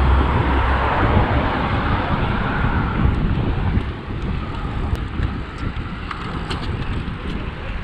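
Wind buffeting a bike-mounted camera's microphone, with road noise from riding a road bike in a group. It is loudest in the first few seconds and eases from about four seconds in, with a few faint ticks near the end.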